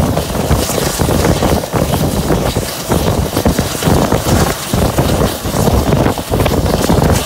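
A passenger train running at speed, heard from an open coach doorway: a steady rumble from the coaches and track under heavy wind buffeting on the microphone.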